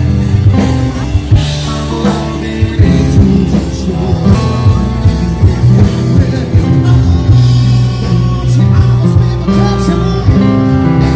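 Rock music with guitar, drums and singing, playing at a steady beat.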